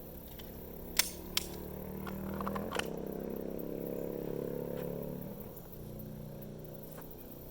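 Two 9mm pistol shots from a Beretta 92, fired one-handed about half a second apart around a second in, the last shots of a timed rapid-fire string. Under them a low steady drone, like a distant engine, swells and fades.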